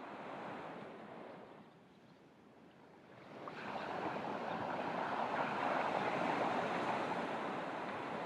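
Ocean surf on a beach: the wash of one wave dies away, then about three and a half seconds in the next wave breaks and its rushing hiss builds up and holds.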